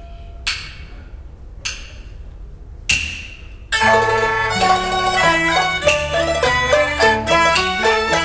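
Peking opera accompaniment: three sharp percussion strikes with ringing decays, about a second apart. About four seconds in, a bowed fiddle and plucked strings come in, playing a busy melody.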